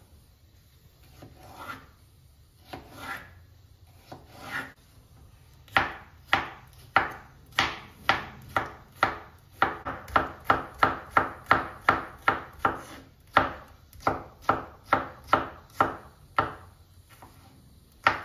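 Chef's knife dicing cucumber on a bamboo cutting board. A few soft, spaced cuts come first. From about six seconds in, a steady run of sharp chops follows at about three a second, and it stops shortly before the end.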